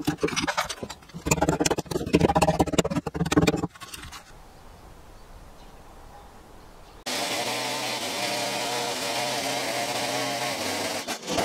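Sharp knocks and cracks of wood for the first few seconds as the chainsaw-cut waste blocks are broken out of a beam notch. After a quieter stretch, a Stihl two-stroke chainsaw comes in suddenly about seven seconds in and runs steadily.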